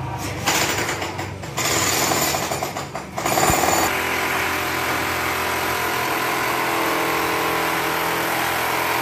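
Electric jackhammer running on the building site: two short bursts in the first three seconds, then a steady run with an even hammering buzz that stops abruptly at the end.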